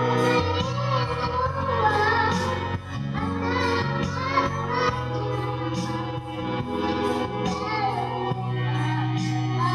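A voice singing a wavering melody over a music backing track with held chords, a bass line and a steady beat; the singing is strongest in the first three seconds.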